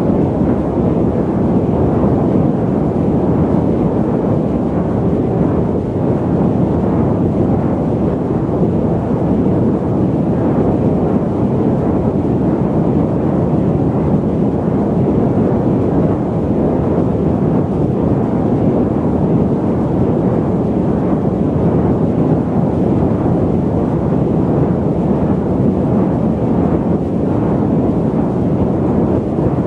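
Steady, deep airliner cabin noise in flight: the even rush of engines and airflow heard from inside the cabin, with most of the sound low and little hiss.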